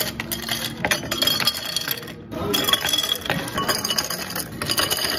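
Ice cubes scooped with a metal ice scoop and tipped into glass jars, clattering and clinking against the glass. It comes as two scoopfuls, with a short pause about two seconds in.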